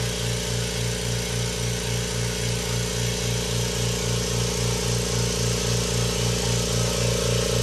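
Kobalt 26-gallon electric air compressor running steadily, its pump pulsing about four times a second as it compresses air into the tank.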